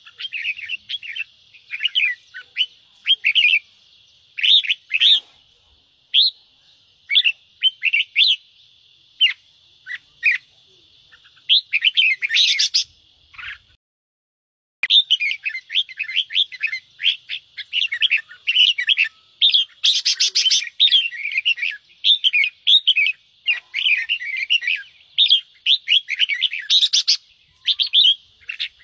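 Red-whiskered bulbuls giving rapid scolding 'ché' chatter calls in quick runs of short, sharp notes, with a few harsh, noisy bursts among them. The calls are sparse at first, break off for about a second near the middle, then come thick and nearly continuous.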